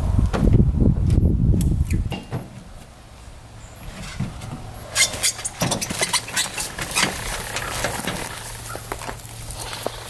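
Aluminium loading ramp clanking and rattling as a dirt bike is rolled down it from a pickup bed, a run of sharp metallic knocks through the second half. A low rumble for about the first two seconds, before the ramp sounds start.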